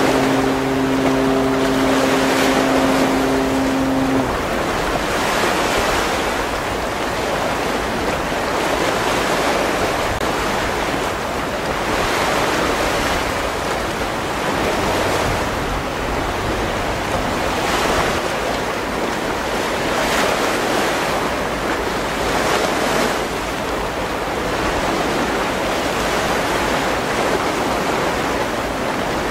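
A prolonged blast of the Aegis destroyer Kongō's ship's whistle, a deep steady tone, cutting off about four seconds in: one of the approach warning blasts to the fishing boats around her. After it, steady wind on the microphone and sea noise.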